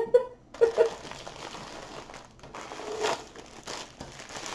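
Clear plastic bag crinkling as a bag of diamond-painting drill packets is pulled from a rolled canvas and handled, with a few short pitched sounds in the first second.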